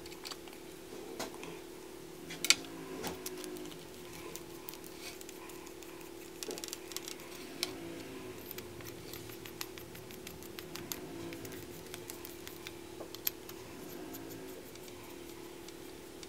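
Small clicks and taps of a brass mechanical vape mod's tubes, caps and battery being handled and fitted together, with a sharp click about two and a half seconds in and another near thirteen seconds. A steady low hum runs underneath.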